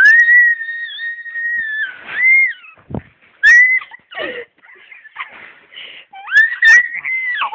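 A person making loud, shrill, high-pitched sounds: one long held shriek of about two seconds, then shorter rising and falling ones about halfway through and near the end.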